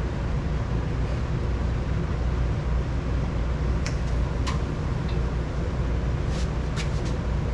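Steady low mechanical hum, with a few brief sharp hisses in the middle and near the end.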